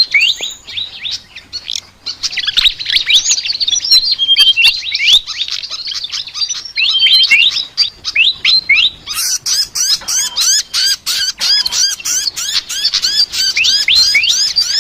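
Sikatan (flycatcher) singing a fast, varied chatter of quick rising chirps. About nine seconds in, the song settles into a steadier run of rising notes, about three or four a second.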